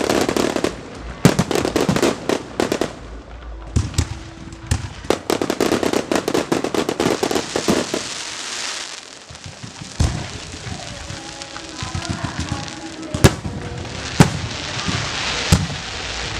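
Aerial fireworks going off: rapid strings of crackling bursts through the first half, then a few single sharp bangs from shells in the second half.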